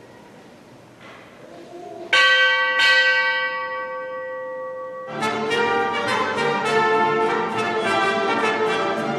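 Bells rung at the consecration: two single strikes that ring on, then rapid, continuous ringing from about five seconds in.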